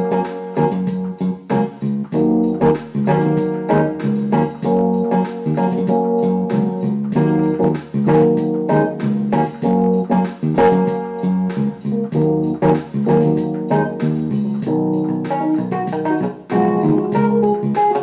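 Background music on keyboard with an organ-like sound, playing steady chords in an even rhythm.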